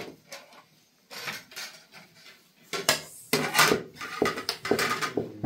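Clattering of hard objects being handled: a string of sharp knocks and scrapes, scattered at first, then denser and louder from about three seconds in.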